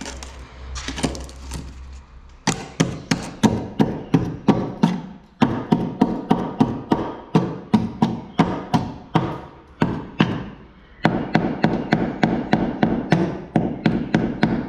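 Runs of sharp knocks, about three or four a second with short breaks, as a long steel bar is jabbed into the fibreglass filler and rusted sheet steel at the corner of a Magirus truck cab, chipping the old filler away.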